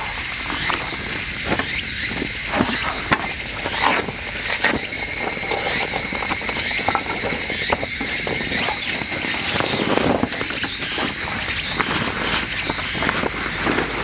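Loud, steady, high buzzing chorus of summer insects, with a second, purer whining tone joining about five seconds in. Over it come scattered wooden knocks and clatter as a folding wooden slat camp table is unpacked and set up.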